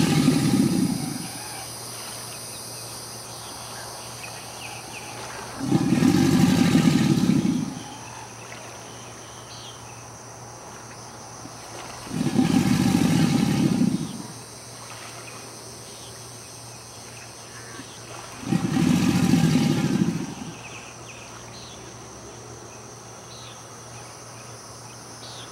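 American alligator bellowing: a low, roaring call about two seconds long, repeated four times about six seconds apart, the first already sounding at the start. The bellow is the alligator's courtship and territorial call. Crickets keep up a steady high chirring underneath.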